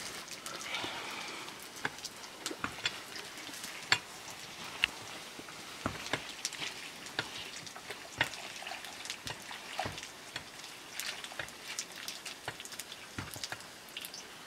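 Crackling and sizzling from a wood cooking fire with a wok of greens over it: sharp irregular pops over a soft steady hiss.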